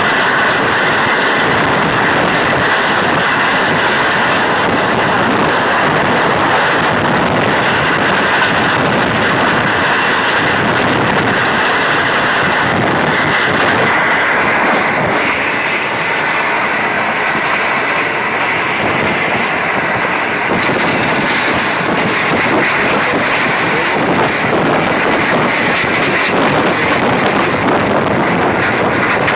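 Passenger train coaches running at speed, heard from an open window: a steady, loud rush of wheels on rails, with some clickety-clack.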